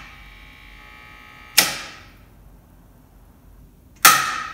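Magnetic contactor on a neon bombarder control circuit switching under test: a steady buzz while its coil is energised, which stops with a sharp metallic clang about a second and a half in, then another clang near the end as it switches again.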